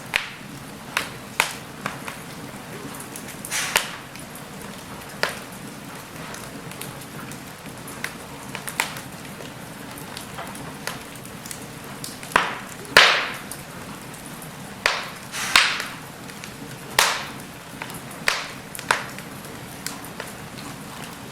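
Wood fire burning in a fireplace, crackling over a steady hiss, with sharp irregular pops and snaps every second or so, the loudest about halfway through.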